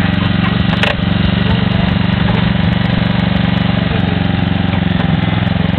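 Small petrol engine of a hydraulic rescue-tool power unit running steadily, with a sharp click about a second in.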